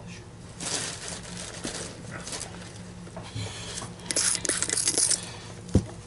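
Items being moved about on a cluttered workbench while someone hunts for a bottle of polish: scattered light clinks and knocks, rustling, and a longer hissing rustle about four seconds in, over a faint steady low hum.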